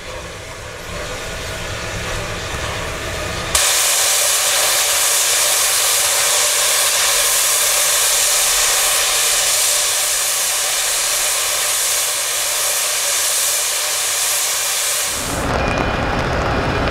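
Shay geared steam locomotive J. Neils Lumber Co. No. 5 venting steam: a loud, steady hiss that starts suddenly about three and a half seconds in and stops shortly before the end. Before and after it, a softer hiss over a low rumble.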